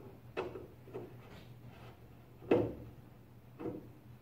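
A screwdriver knocking and clicking against the back panel of an old Zenith television as screws are worked loose. There are four or five short knocks, the loudest about two and a half seconds in.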